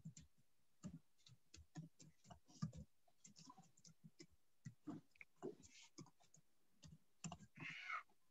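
Near silence with faint, irregular clicks and taps, several a second, and a short rustle near the end.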